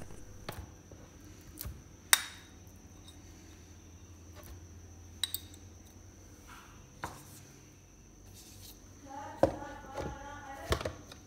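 A few separate light clicks and taps of a metal fork against a plastic food container and a small ceramic bowl as dates are picked out, then a closer run of plastic clatter near the end as the container's lid is put on.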